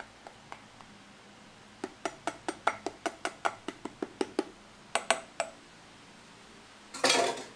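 A metal spoon tapping and scraping against a stainless-steel pet bowl as wet pet food is knocked off it, in a quick run of sharp clinks at about four or five a second, then a few more. A brief louder clatter comes near the end.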